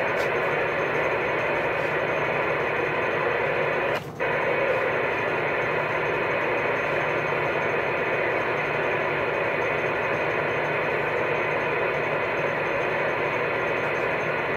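CB radio receiver on AM putting out a steady hiss of static from its speaker, with no signal coming through. About four seconds in the hiss drops out for a moment.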